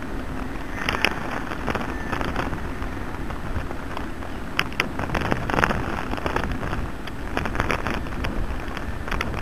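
Ride noise from a bicycle-mounted camera: a steady rush of wind on the microphone with the bike and mount rattling over rough pavement, sharp clattering knocks about a second in and a run of them from about four and a half seconds on.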